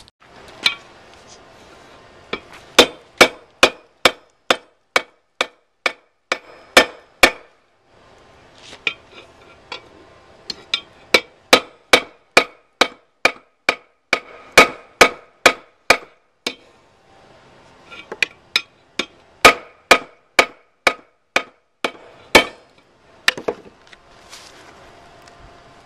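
Hand hammer striking a bar of 1/2-inch rebar on a small steel anvil while forging a pair of tongs, with sharp ringing blows at about two a second. The blows come in three runs with short pauses between them.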